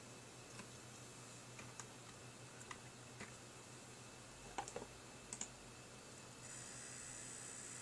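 Scattered clicks from the computer's controls over a steady low hum, then about six and a half seconds in the XFX Pro 750W power supply starts a steady high-pitched buzz and holds it. The buzz is coil whine inside the unit, not the fan, a sign of a faulty power supply.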